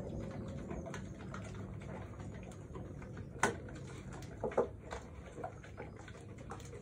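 Two Cane Corso dogs eating from stainless steel bowls: wet chewing and lapping with scattered small clicks, and a few sharper clicks about three and a half and four and a half seconds in.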